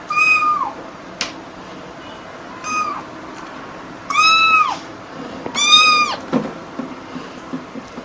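Young kitten meowing: four high-pitched meows, the second one short, each dropping in pitch at its end.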